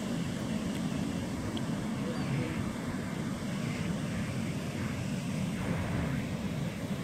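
Steady roar of heavy ocean surf breaking along the beach, the big storm swell left behind by a passing hurricane.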